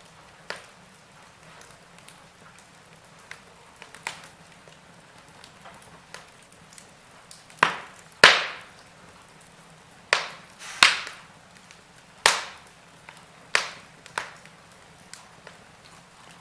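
Wood fire crackling in a fireplace: irregular sharp snaps and pops over a faint steady hiss, with a run of louder pops in the middle.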